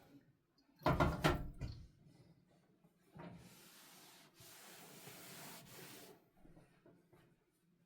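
Household items being handled: a quick cluster of knocks about a second in, then about three seconds of a steady rubbing hiss.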